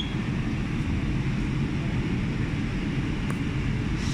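Cold welding machine working on 3 mm stainless steel plate: a steady low noise with a few faint ticks, one about three seconds in.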